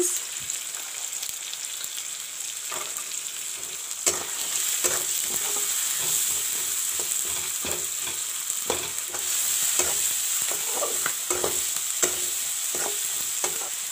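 Green peas, onions and tomatoes sizzling in hot oil in a metal wok, with a metal spatula stirring and scraping against the pan in short, irregular strokes over a steady hiss.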